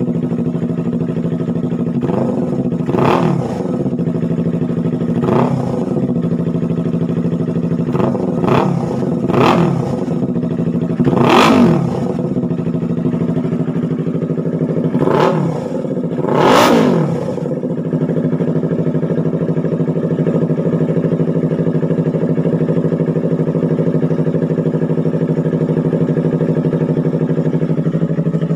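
Yamaha R3's 321 cc parallel-twin engine running loud through an Austin Racing twisted-elbow exhaust with resonator: about seven quick throttle blips that rise and drop back, then about ten seconds of steady idle.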